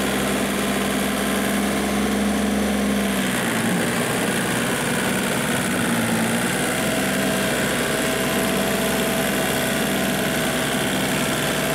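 Small Kubota tractor's diesel engine running steadily while pulling a harrow through a flooded rice paddy. Its low hum drops away about three seconds in and the engine note carries on more thinly.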